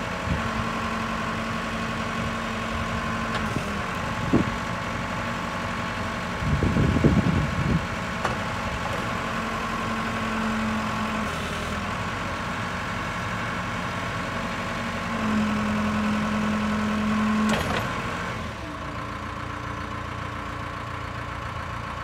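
Case 580 backhoe loader's diesel engine running steadily as the backhoe arm is worked, a higher hum swelling in three stretches under hydraulic load, with a loud clunk about seven seconds in. Near the end the engine settles to a lower, quieter idle.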